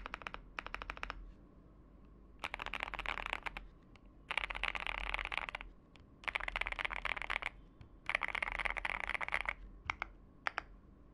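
Xinmeng A66 mechanical keyboard with lubed and filmed 68 g Boba U4T tactile switches on a PC plate, typed in five fast runs of keystrokes about a second long with short pauses between, then two single key presses near the end.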